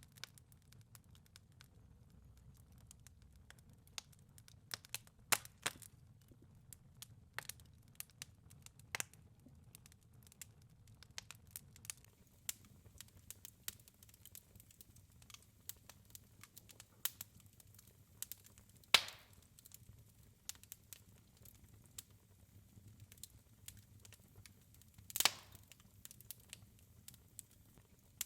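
Wood fire crackling in a fireplace: irregular small crackles and snaps, with two louder pops, one about two-thirds through and one near the end.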